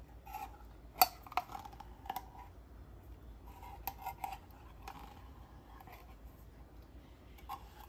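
Silicone spatula scraping the inside of an open metal can of sweetened condensed milk to empty it, with light scrapes and scattered clicks of spatula against can. A sharp click about a second in is the loudest.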